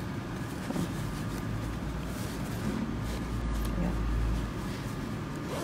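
Hands handling and rustling a cotton fabric pouch, with faint scattered rubbing and tapping noises over a steady low hum.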